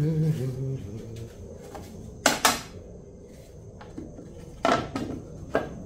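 Thin wooden boards knocking against a wooden frame as they are set into place: a sharp wooden knock about two seconds in, the loudest, then two more near the end. A brief low pitched sound comes right at the start.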